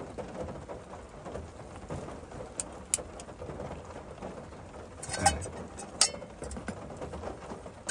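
Steady rain patter around an open car, with a few sharp clicks and metal knocks as a backpacking stove is fitted to its gas canister and a metal camp pot is handled. The loudest knocks come about five and six seconds in.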